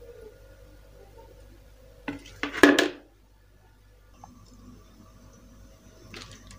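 Kitchen utensils clattering against a metal wok of coconut milk: a short cluster of sharp knocks about two and a half seconds in, and a fainter clink near the end.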